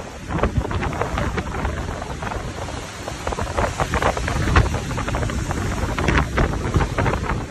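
Rough sea churning and breaking into white water alongside a moving ship, with strong wind buffeting the microphone in a constant rush of gusts.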